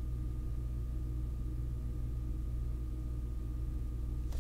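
A steady low hum with a faint, thin high tone over it, unchanging throughout; a sharp click comes right at the end.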